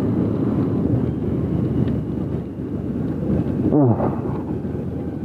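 Wind buffeting the microphone over the running motorcycle and its tyres on the wet road as it rides along. A short pitched sound about four seconds in stands out above the noise.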